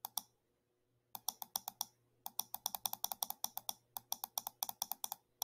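Computer mouse scroll wheel ticking in quick runs of clicks, about ten a second, with short pauses between the runs.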